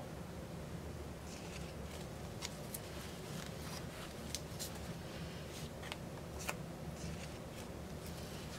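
Painted canvas spinning on a hand-turned wooden turntable: a steady low rumble with scattered light clicks and rattles.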